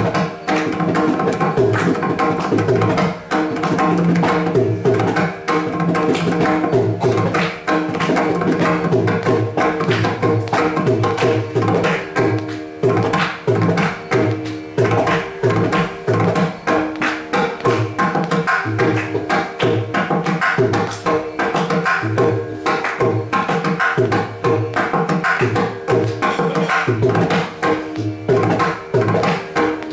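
Mridangam played solo in a fast, dense stream of strokes, ringing open strokes mixed with deep booming bass strokes in a steady rhythm, over a continuous electronic tanpura drone. This is the percussion solo (thani avartanam) of a Carnatic concert, with the violin silent.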